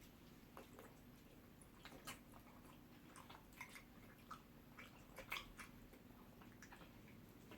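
Faint wet chewing and mouth smacks from people eating pounded yam with ogbono soup, as scattered short clicks. The loudest cluster comes about five seconds in.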